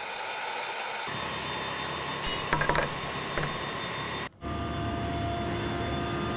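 Steady engine noise from military machinery, with high whining tones over it and a short clatter of clicks about two and a half seconds in. About four seconds in the sound cuts out for a moment, then carries on with a different steady engine noise.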